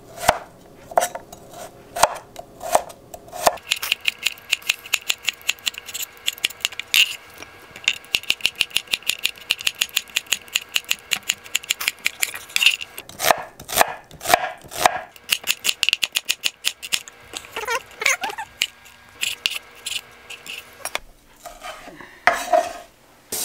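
Chef's knife slicing cucumber on a wooden cutting board: quick, rhythmic taps of the blade striking the board several times a second, in runs with short pauses between them. Near the end the knife is cutting tomato.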